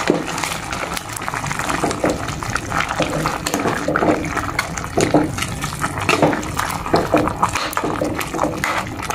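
A pot of lechon paksiw at a boil, the broth bubbling and sloshing as a metal ladle stirs through the pork, with scattered light clicks throughout.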